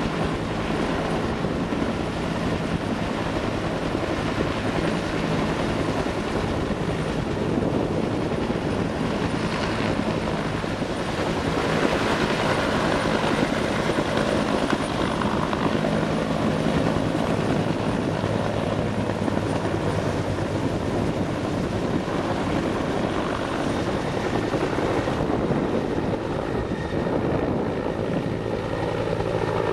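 Two-bladed Bell waterbombing helicopter hovering low while it refills with water. The rotor and turbine give a steady, loud, continuous noise.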